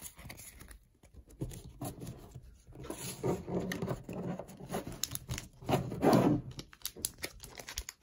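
Pokémon trading cards being handled: rubbing and scraping of card against card, with soft knocks as they are moved on the table, loudest about three and six seconds in.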